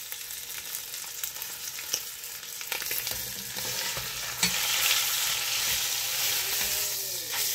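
A pork roast searing in butter and olive oil in a Dutch oven: a steady sizzle that grows louder about three seconds in, as the roast is turned onto a fresh side. A few clicks come from the tongs and spatula knocking against the pot.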